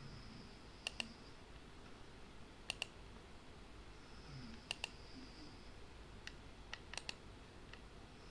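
Computer mouse clicking: three quick double clicks spread through the first five seconds, then several single clicks near the end.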